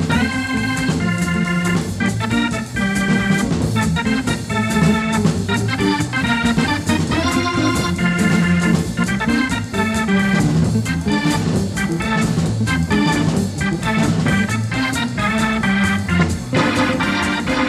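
Jazz Hammond organ playing quick runs of short, crisp notes over a low bass line, in a 1950s small-group recording.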